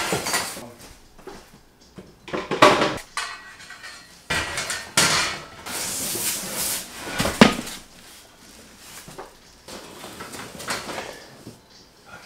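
Flat-pack desk being unpacked: cardboard and foam packing scraping and rustling in irregular bursts, with clinks and knocks of the metal desk parts, the sharpest knock about seven and a half seconds in.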